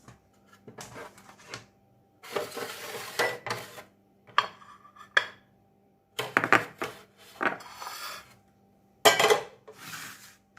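Kitchen handling sounds in several separate bursts: dishes and utensils being set out, scraping and rubbing against each other and against a wooden surface.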